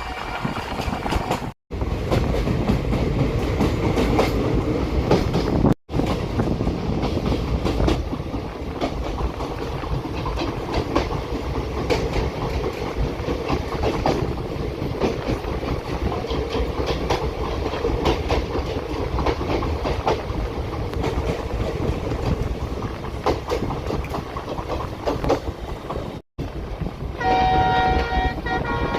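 Passenger express train running along the track: a steady rumble with wheel clicks over the rail joints, broken by three brief silent edits. Near the end a train horn sounds, a chord of several steady tones.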